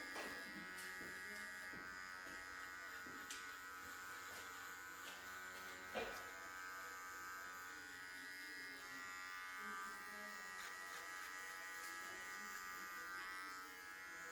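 Electric hair clippers running with a steady buzz, with a sharp click about six seconds in.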